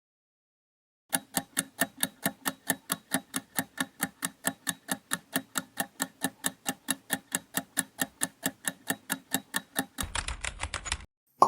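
Quiz countdown timer sound effect: a clock ticking steadily about four times a second, then a short faster rattle of clicks and a brief tone as time runs out.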